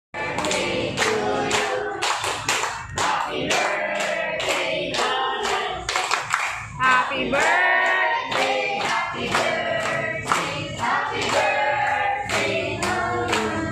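A group of people singing a birthday song together, clapping in time to it.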